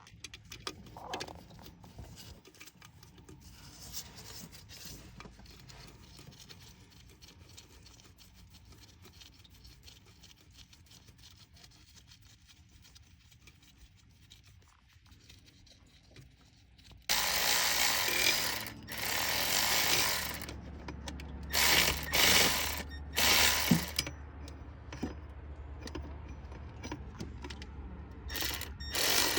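Socket ratchet clicking as the new water pump's bolts are tightened: faint, scattered clicks at first, then several loud runs of ratcheting starting about two-thirds of the way in.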